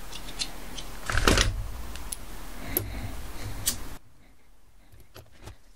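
Light metallic clicks and handling noise as a Lockwood five-pin lock cylinder is put back together by hand, with a louder clatter a little over a second in. Everything gets quieter about four seconds in, leaving only faint clicks.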